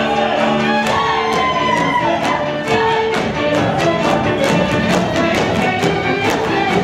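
Live Hungarian folk band playing fast dance music: a bowed string melody over double bass and cimbalom, with a steady beat of sharp accents.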